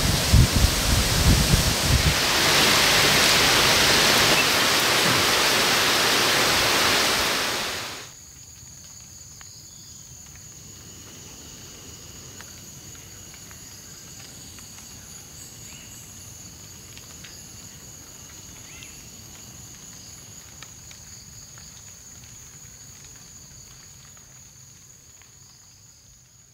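A loud steady rush of falling water cuts off abruptly about eight seconds in. Then comes quiet tropical forest ambience, with insects trilling in several steady high tones, fading out near the end.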